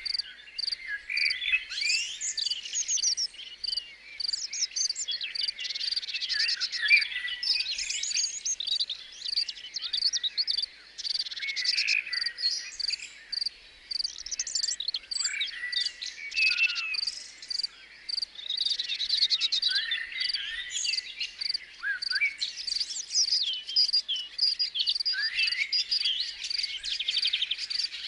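Several birds singing and calling in overlapping short chirps and trills, over the steady, evenly pulsing chirping of insects.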